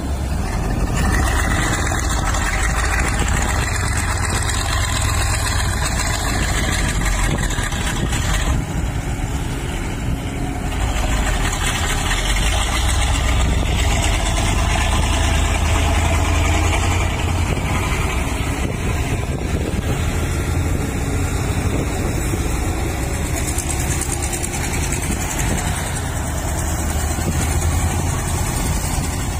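Diesel engines of heavy earthmoving machinery running steadily, a continuous low engine drone from excavator, dump trucks and roller working the site.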